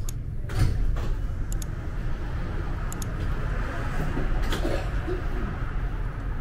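Road traffic: cars driving past on a multi-lane road, a steady low rumble of tyres and engines with a slight swell about half a second in. A few faint high clicks sound over it.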